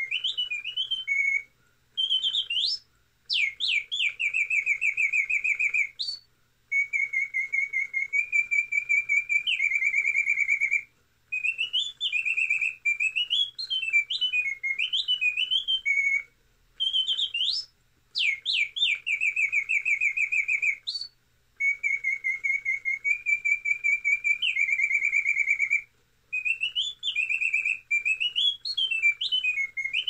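Mechanical singing-bird automaton: a bellows-driven multi-pitch whistle pipes a birdsong tune. Warbling phrases, quick rising sweeps and long rapid trills follow one another with short pauses between, and the sequence repeats about every 15 seconds.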